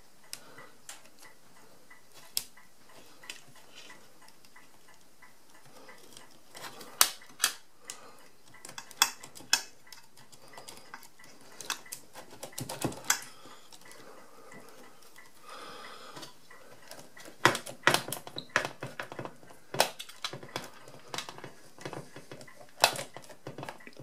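Small metal-on-metal clicks and clinks from the result-register carriage of an Odhner 239 pinwheel calculator as it is handled and its resetting-crank bushing is fitted and lined up. The clicks come irregularly, sparse at first and much more often from about seven seconds in.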